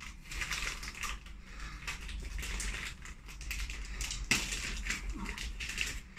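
Plastic bag crinkling and rustling as it is cut open and pulled off a small cardboard box, with a louder crackle about four seconds in.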